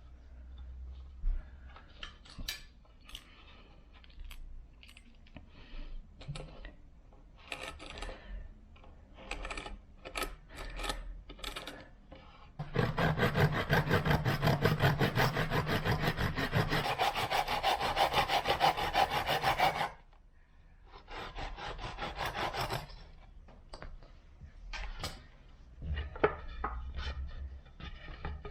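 A hand tool rasping back and forth on wood. There are short scattered strokes at first, then a rapid, steady run of strokes for about seven seconds midway, then more short rubs and scrapes.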